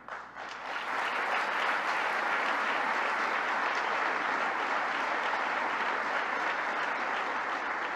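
A large audience applauding, a dense steady clapping that swells up during the first second and holds evenly for several seconds.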